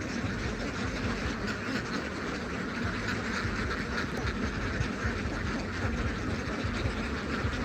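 A large flock of domestic ducks quacking continuously, many calls overlapping into a steady din.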